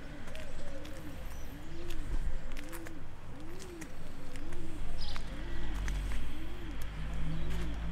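A pigeon cooing over and over: about eight low, arched coos, roughly one a second. Scattered sharp clicks sound alongside, and a low rumble comes in during the second half.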